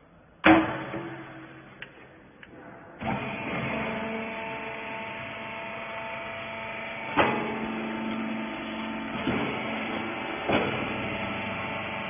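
A small hydraulic bagging press for nonwoven wipers: a loud metal clank about half a second in, then from about three seconds in its electric motor and hydraulic pump start and run steadily with a steady hum, broken by a few short clunks as the ram pushes the material into the bag.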